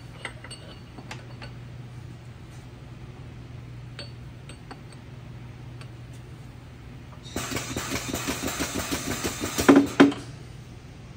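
Steel parts clinking and tapping as pieces are set into a steel crankshaft press fixture. About seven seconds in, a fast mechanical rattling starts and runs for about three seconds, loudest just before it cuts off. A steady low hum sits underneath.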